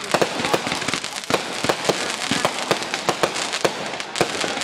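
Aerial consumer fireworks going off: many sharp pops and bangs at irregular intervals, several a second, over a continuous crackling hiss.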